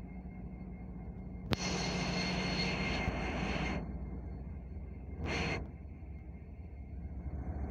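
Union Pacific diesel locomotives rolling past close by, their engines running with a steady low drone and a thin high whine. A sharp click about a second and a half in is followed by about two seconds of loud rushing noise, and a shorter rush comes near the middle.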